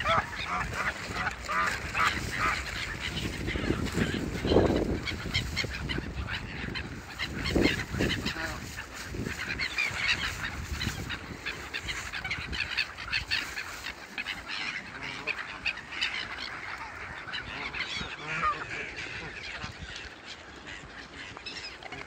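A flock of Canada geese honking, with many overlapping calls. The loudest honks come about four and a half and seven and a half seconds in, and the calls thin out and grow quieter in the second half.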